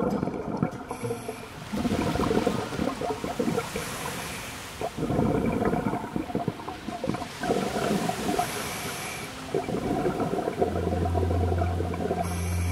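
Scuba breathing heard underwater: a diver's regulator exhausting exhaled air as bursts of gurgling bubbles every two to three seconds, with quieter gaps between breaths. A low steady hum comes in near the end.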